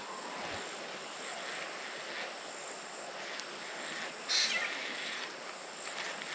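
Steady drone of insects in the bush, with one short, sharper high call about four seconds in.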